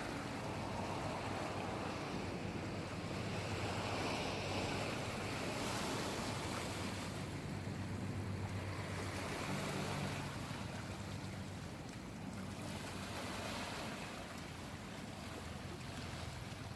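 Sea waves washing in and easing back in slow surges, with a low steady hum beneath them.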